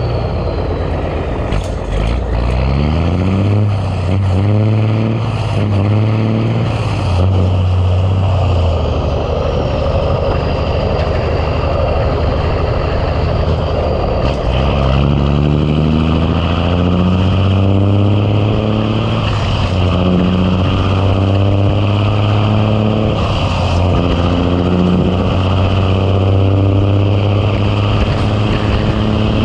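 A Big Cam Cummins inline-six diesel in a Ford LT9000 truck pulling under load. The engine note climbs a few seconds in, drops back near nine seconds, then climbs again through several more gear shifts in the second half.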